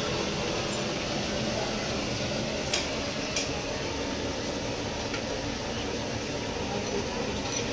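Steady hiss of food frying in a large aluminium kadai over an LPG gas burner, with two light metal clinks of a slotted spoon about three seconds in.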